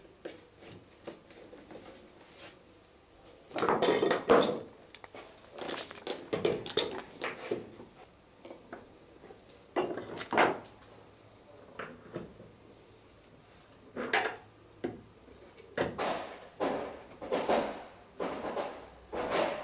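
Metal clamps clattering and clicking in irregular bursts as they are set and tightened onto a wooden boat plank.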